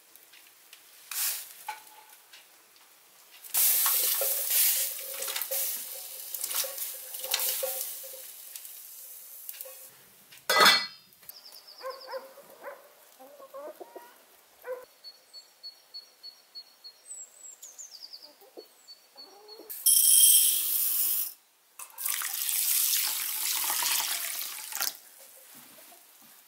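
Kitchen sounds in turn. First, several seconds of water pouring. Then an enamel pot lid clanks shut with a short metallic ring, with faint bird chirps after it. Near the end, dry rice rattles briefly into a ceramic bowl, followed by a few seconds of water poured over the rice.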